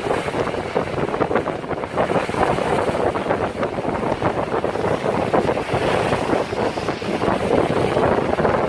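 Ocean surf crashing and washing against rocky sea cliffs, a loud, continuous churning of water, with wind buffeting the microphone.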